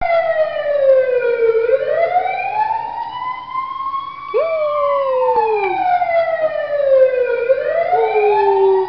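Ambulance wail siren, slowly rising and falling in pitch about once every six seconds. A beagle howls along twice: once about four seconds in, a quick rise then a long falling note, and again near the end.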